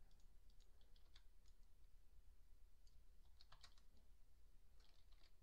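Faint clicking of a computer keyboard and mouse: scattered single taps, with two quick clusters of clicks in the second half, over a low steady hum.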